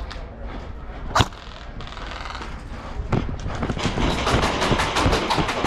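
A sharp knock about a second in, then footsteps crunching quickly on dirt and gravel with the rattle of carried gear as an airsoft player moves along a path.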